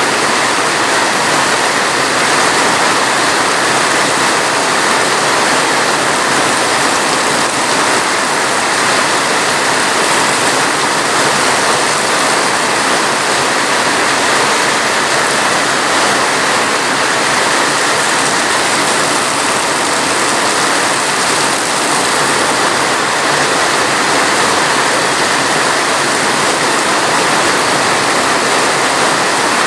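Steady, unbroken rain, loud and even throughout.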